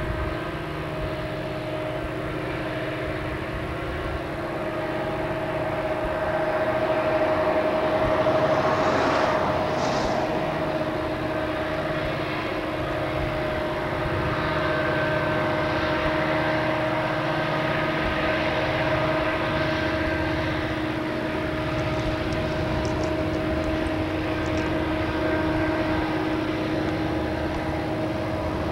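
A lashup of Southern Pacific diesel-electric locomotives working a freight train: a steady engine drone with a constant whine over a low rumble, getting a little louder about six seconds in as they come closer.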